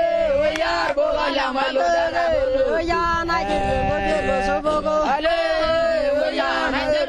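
Several voices chanting together in song, with held notes that slide up and down.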